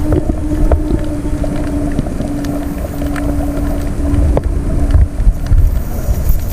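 Steady low motor hum over heavy low rumbling, with wind buffeting the microphone; the hum breaks off briefly a few times and fades out about five seconds in.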